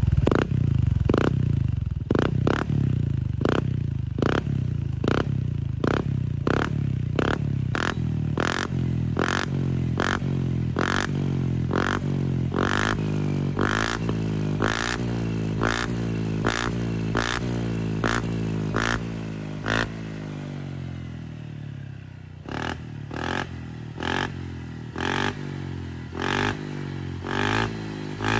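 Honda ADV 160 scooter's single-cylinder engine running through an Apido V4 aftermarket exhaust, idling steadily, with a regular beat about every half second over it. The engine sound falls away about two-thirds of the way through, leaving quieter regular pulses.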